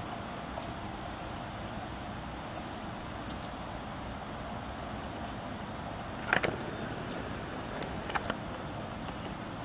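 A bird chirping, a quick run of about nine short, high, falling chirps over a steady hiss. A couple of sharp knocks follow near the end.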